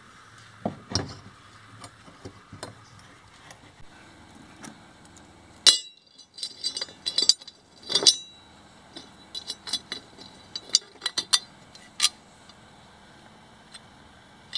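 Aluminium sheet brackets and small steel bolts, nuts and washers clinking and tapping as they are handled on a workbench. Scattered duller knocks come first, then clusters of sharp clinks in the second half.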